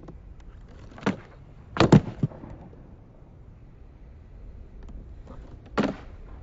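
Wooden skateboard clacking on asphalt during a rail-stand trick: a light clack about a second in, and a loud double clack near two seconds as the board is flipped onto its edge and the rider lands on it. Near the end it drops back onto its wheels with one more clack.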